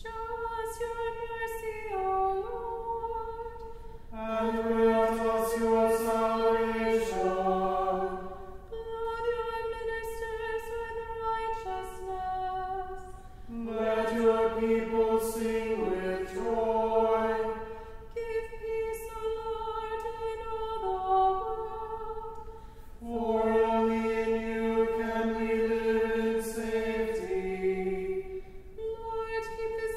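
Voices singing a cappella in slow, held notes that move in steps, phrase by phrase with short breaks between, a lower part joining in some phrases.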